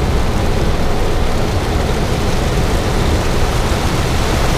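Boeing 737 cockpit in the climb after take-off: a loud, steady rush of airflow and engine rumble, with heavy rain on the windscreen.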